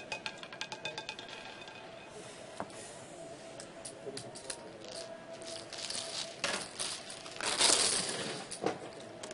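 Roulette ball clattering over the spinning wheel's frets and pockets in a fast run of clicks that slows and stops within the first two seconds as the ball settles. Scattered clinks follow, then a louder burst of clatter about 7 to 8 seconds in.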